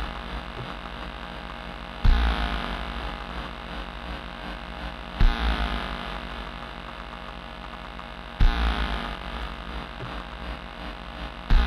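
Modular synthesizer playing a slow, sparse pattern: a deep thump with a noisy, decaying wash and faint falling sweeps, repeating about every three seconds, four times, over a steady low hum.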